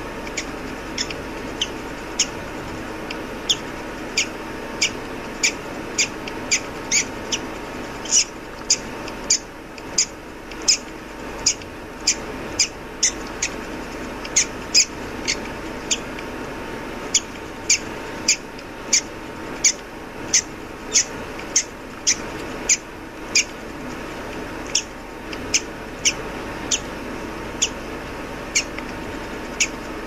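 Newly hatched bird chick peeping: a long run of short, high-pitched cheeps, one or two a second with a few brief pauses, over a steady background noise.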